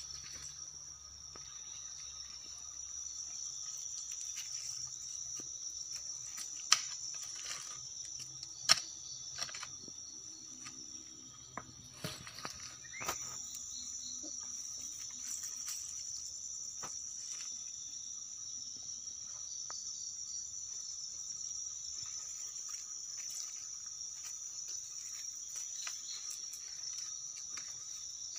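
Insects chirring steadily in a high-pitched continuous drone. A few sharp knocks cut in, the loudest about seven and nine seconds in and smaller ones around twelve to thirteen seconds.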